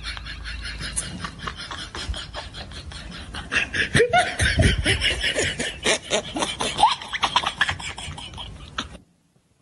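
Fast, even puttering, like a small motorcycle engine, with people laughing and calling out over it in the middle; it cuts off abruptly near the end.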